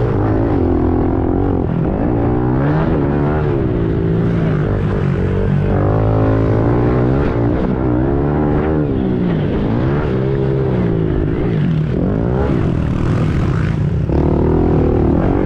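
Pit bike engine revving hard under race throttle, its pitch climbing and dropping every second or two as the rider opens and shuts the throttle through the track's turns.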